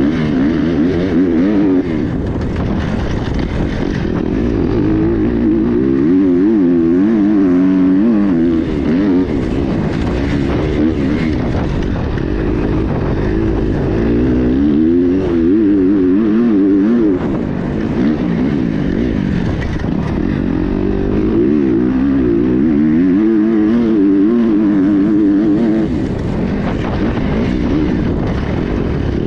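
Kawasaki KX250X four-stroke single-cylinder dirt bike engine, heard on board while riding a trail. Its pitch rises and falls again and again as the throttle is opened and rolled off.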